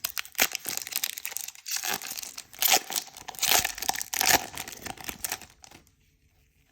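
Foil booster-pack wrapper being torn open and crinkled by hand, in a run of sharp crackles that stops about five and a half seconds in.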